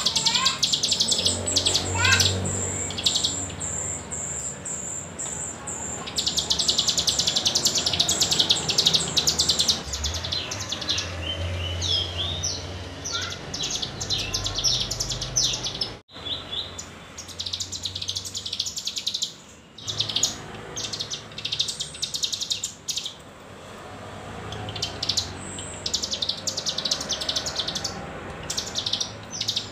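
A cigun, a mountain prinia, singing a lure song: fast, high chattering trills and runs of notes in long bursts with short pauses, broken off abruptly about halfway through. This is the kind of song played to prompt young cigun to sing along.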